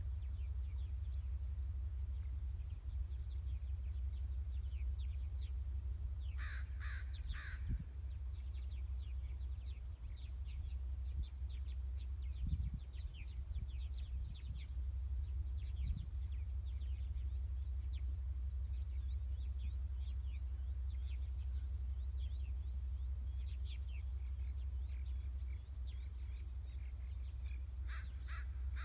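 A crow cawing three times in quick succession, and three caws again near the end, over a steady low rumble and faint scattered ticking and chirping.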